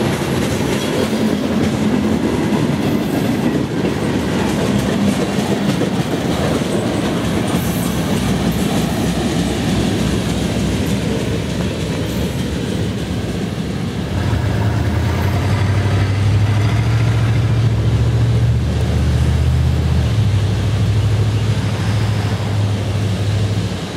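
Freight cars rolling past on jointed track, wheels clicking and rumbling over the rails. About fourteen seconds in a steady low drone comes up and holds as the last car, a tank car, rolls away.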